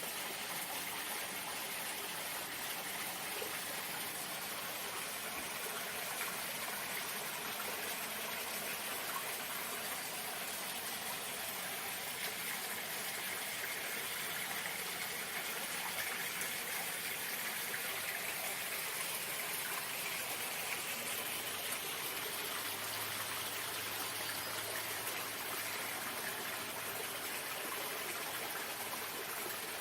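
Running water: a steady, even rush that does not change.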